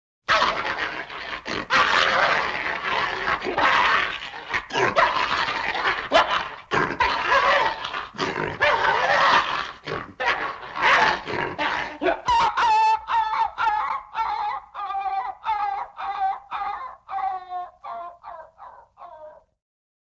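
Cartoon dog sound effect: a dense jumble of barking for about twelve seconds, then a run of short whimpering yelps, about two a second, sliding slightly lower in pitch and fading out near the end.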